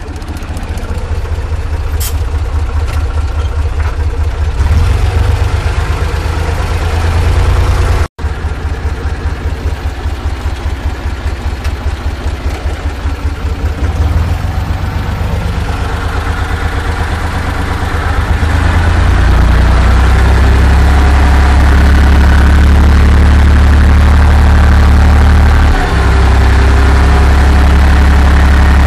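Torpedo 45 tractor's air-cooled diesel engine working under load, pulling a two-furrow plough through dry ground, heard from inside the cab. The sound cuts out for an instant about eight seconds in, and the engine settles into a steadier, louder note about nineteen seconds in.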